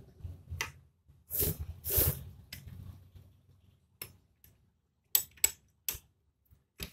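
Small metal clicks and clinks of a motorcycle gearbox gear fork being worked up and down to seat its pin in the shifter drum groove. A louder scraping handling noise comes about one and a half to two seconds in, and several sharp clicks follow near the end.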